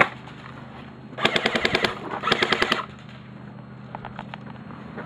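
Airsoft electric gun firing two short full-auto bursts of rapid, evenly spaced shots, about a second apart, followed by a few faint ticks.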